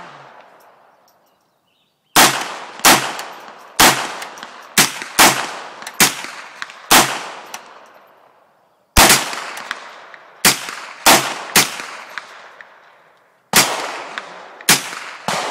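Smith & Wesson M&P15-22, a semi-automatic .22 LR, fired about fourteen times, one shot at a time, each crack followed by a long fading echo. The shots come in three strings with short pauses between them, starting about two seconds in.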